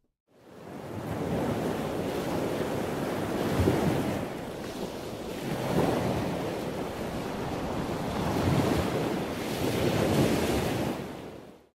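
Ocean surf: waves breaking and washing in, swelling and easing several times. It fades in at the start and fades out near the end.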